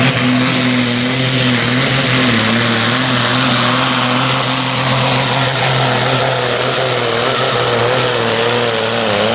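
Turbocharged diesel engine of an International supersport pulling tractor running flat out under full load while dragging a weight-transfer sled. It holds a steady pitch, which wavers a little in the second half.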